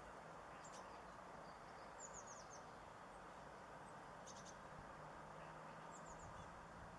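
Faint, high, short chirps of small garden birds over a steady low hiss: a quick run of falling notes about two seconds in, and more brief calls around four and six seconds in.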